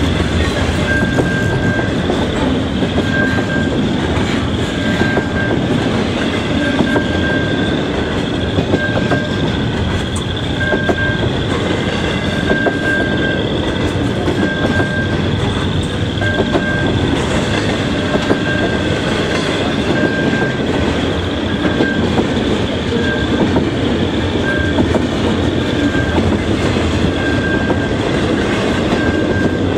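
Double-stack container well cars of a freight train rolling past: a loud, steady rumble of steel wheels on the rails, with a thin high squeak recurring about once a second.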